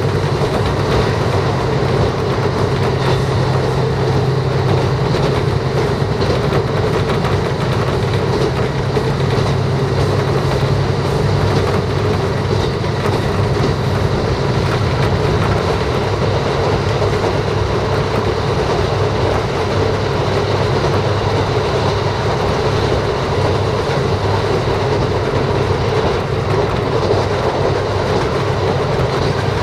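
Diesel railcar running along the line, heard from inside the carriage: steady engine drone and rolling rail noise, with wheels clicking over rail joints. The low engine note drops back about twelve seconds in.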